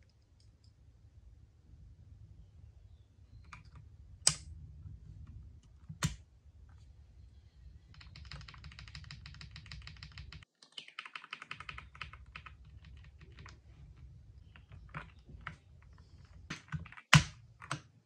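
Keys of an Ajazz AK820 Pro mechanical keyboard clicking. There are a couple of single presses, then several seconds of rapid typing in the middle, then scattered presses with one louder clack near the end.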